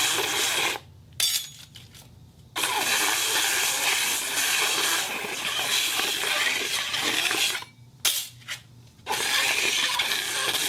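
Iron plate on a turntable giving a harsh, continuous metallic scraping with faint ringing tones. It stops twice for about a second and a half, with one or two short sharp knocks in each pause.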